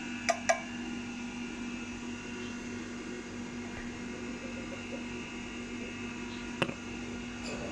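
Small plastic and glass bottles knocking against a tabletop: two sharp clicks close together near the start and another near the end, over a steady background hum.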